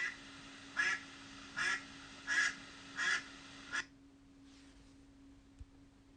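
Duck quacking in a regular series of six quacks, a little under a second apart, that stop a little past halfway.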